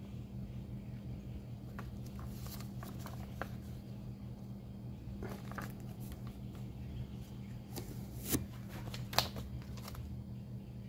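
Glossy paper brochures handled by hand: scattered rustles and light flaps of the pages. Two sharper taps come near the end as the catalogues are set down on the table.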